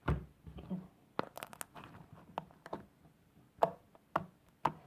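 Slime being squeezed and worked by hand, trapped air popping with a series of sharp clicks and pops, some in quick clusters.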